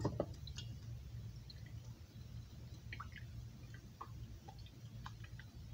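A wire whisk pressing drained crushed pineapple in a stainless-steel colander, with scattered faint clicks and squishes and pineapple juice dripping through into the bowl below.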